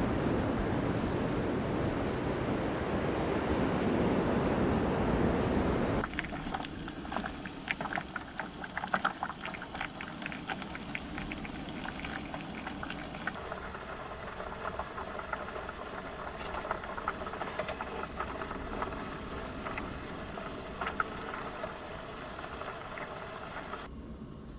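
Sea waves washing in as a loud steady rush. After about six seconds it cuts to a much quieter scene of scattered small crackles and clicks over a faint steady hiss.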